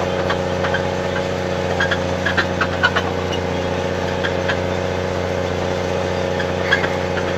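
Snowcat engine running steadily, heard from aboard the machine, with a few faint clicks and knocks over the steady hum.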